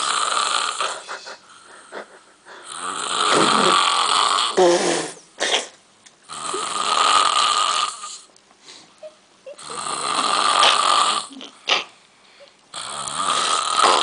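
A man snoring loudly in a slow, even rhythm: four long snores about three and a half seconds apart, with quieter gaps between them, and a fifth starting near the end.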